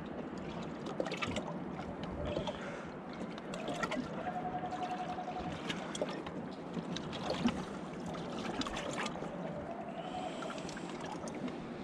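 Water lapping around a small drifting boat, with soft clicks and rustles of hands handling fishing line and bait. A faint held tone sounds briefly about four seconds in and again near ten seconds.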